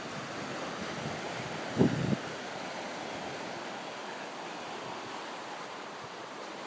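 River water rushing steadily, the river running strong after days of rain, with a brief low thump about two seconds in.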